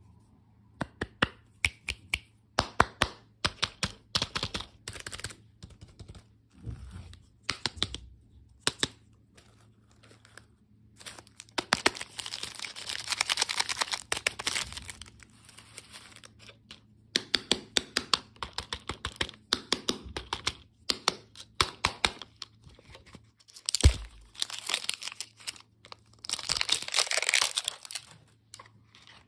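Candy packaging being handled and torn open: quick sharp crackles and clicks of plastic wrappers, with longer stretches of tearing and crinkling about twelve seconds in and again near the end.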